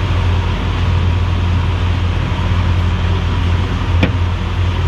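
Mercury Verado four-stroke outboard running steadily with the boat underway: a steady low drone mixed with wind and water noise. A single brief click about four seconds in.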